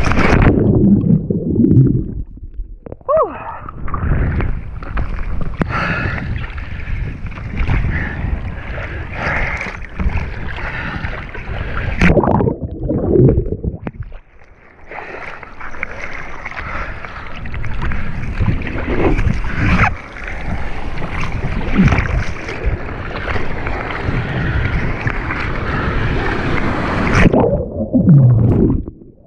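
Surf whitewater churning and splashing around a surfer and his board, right at a water-level camera, with wind buffeting the microphone. The sound drops away briefly a few times as the camera dips under the water.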